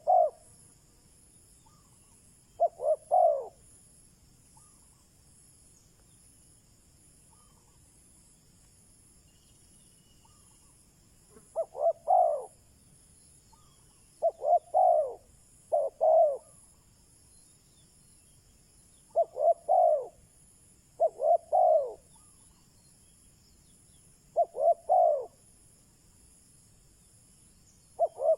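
Spotted dove cooing: short phrases of two to four quick coos, repeated every few seconds with one long pause early on. It is a decoy male's call, used to provoke wild doves into answering.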